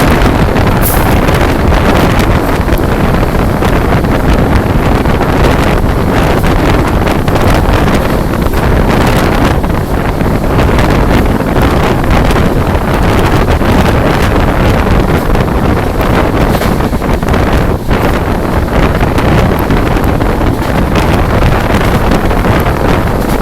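Loud, steady wind buffeting the microphone, mixed with heavy rain and the running noise of an express train at full speed.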